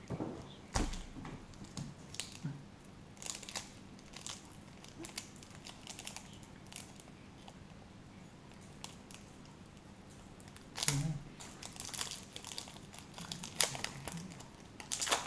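Plastic trading card pack wrapper being torn open and crinkled in the hands: scattered short crackles, with a flurry about three seconds in and a denser run in the last few seconds.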